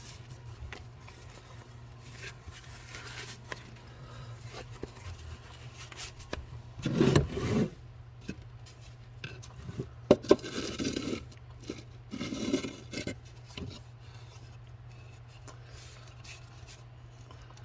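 Scattered clinks, knocks and scrapes of hard objects, tools and parts, being handled and set down on a work surface, with louder clattering about 7, 10 and 12 seconds in. A steady low hum runs underneath.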